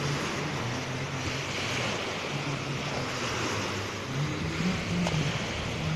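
Small waves breaking and washing up on a beach, with wind on the microphone. A low, wavering hum comes and goes underneath.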